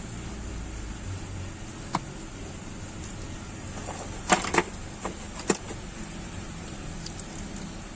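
Small tools clicking and tapping on a repair bench: a single click, then a quick cluster of sharp clicks about halfway through and a few lighter ones after, over a steady fan-like hum.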